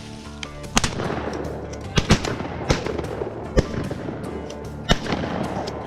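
Shotgun shots, about six in four seconds and two of them almost together, each with an echo, over background music.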